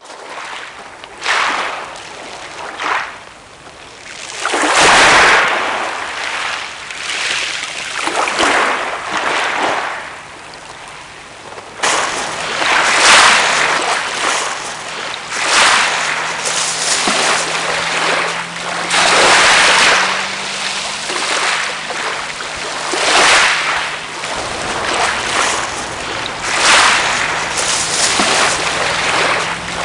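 Small waves breaking and washing up a shingle beach, surging and drawing back every couple of seconds. About twelve seconds in the sound changes abruptly, and later a faint low hum sits beneath the surf.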